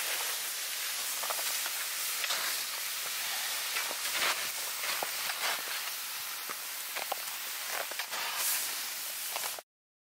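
A steady hiss with scattered crackles and clicks, which cuts off abruptly near the end.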